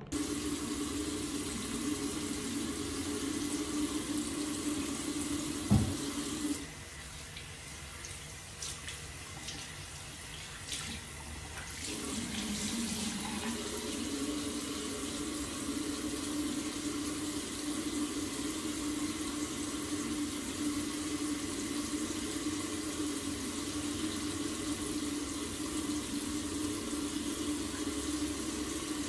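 Bathroom sink tap running into the basin while a face is rinsed. There is a sharp knock about six seconds in, then the water sound goes quieter and uneven with splashes for a few seconds before the steady flow returns.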